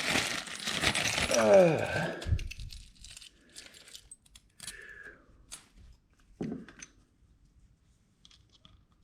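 Packaging rustling for about two seconds, then a few light metallic clinks and clicks of loose new bolts and parts being handled.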